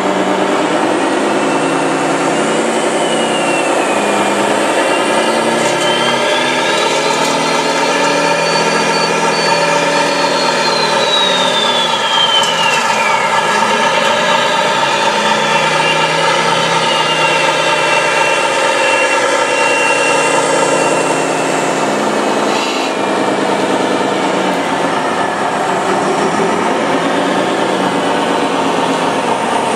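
Radio-controlled construction machines running: a steady engine-like drone, with motor whines that rise and fall in pitch several times as the machines work.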